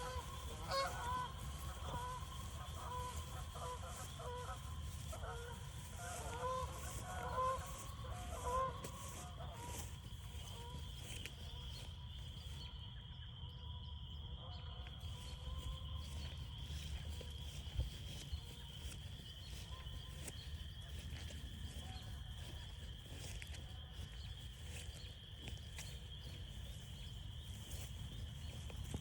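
Spring frog chorus trilling steadily on a high pitch. In the first nine seconds, a run of short honking calls rises over it, several a second.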